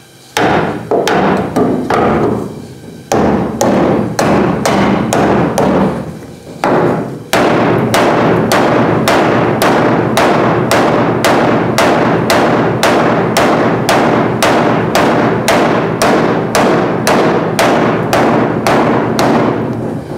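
Hammer blows on the steel rear corner panel of a 1970 Chevrolet El Camino, beating the panel back into shape. A few spaced strikes ring out first, then about seven seconds in comes a steady run of about two to three blows a second.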